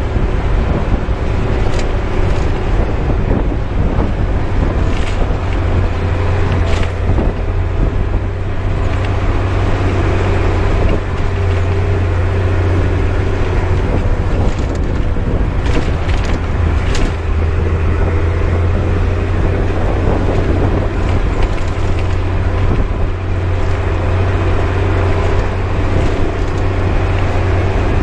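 Bus engine droning steadily with road noise as the bus drives along, and a few sharp rattling clicks from the bus.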